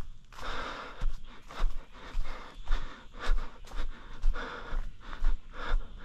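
A runner's heavy, rhythmic breathing, about one and a half breaths a second, with footfalls thudding on a rocky trail in a steady stride.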